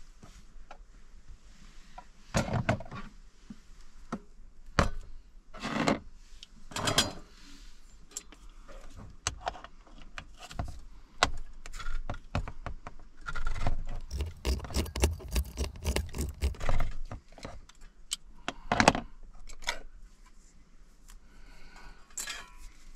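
Hand-crank can opener working around a steel can of beans: a quick run of metallic clicks lasting about three seconds, amid scattered knocks and clatter of metal cookware being handled.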